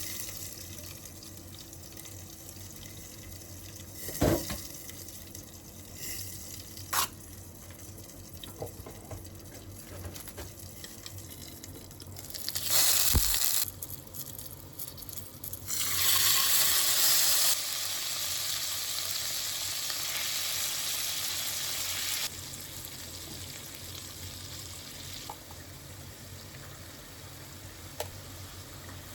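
Kitchen tap water running into a sink in spells, loudest for a moment about 16 seconds in, then running steadily and stopping about 22 seconds in. A few sharp knocks of kitchenware come before it.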